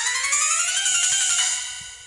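128-polyphonic ringtone of an EVER EV-K100 mobile phone playing a synth-keyboard melody that climbs in a rising run of notes, then fades out near the end.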